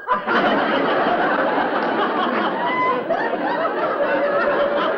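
Audience laughter: many people laughing together, breaking out suddenly just after the start and holding at a steady level.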